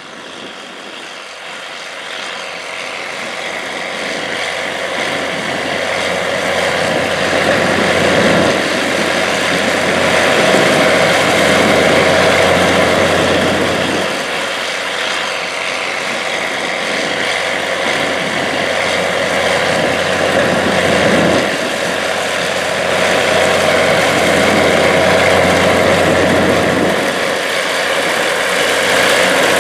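Steiger PTA-325 Panther III tractor's Caterpillar 3406 diesel engine running steadily under load while pulling a strip-till bar. It grows louder over the first several seconds as the tractor approaches, then stays loud.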